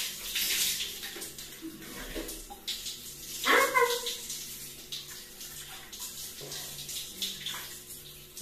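Shower spray running and splashing onto wet hair and skin as the hair is worked by hand. A short pitched sound, the loudest moment, comes about three and a half seconds in.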